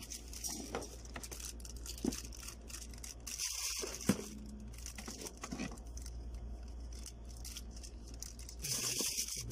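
Condenser microphone kit being unpacked by hand: plastic wrapping crinkling and rustling, with light clicks and knocks of the metal boom arm, pop filter and shock mount, two sharper knocks about two and four seconds in.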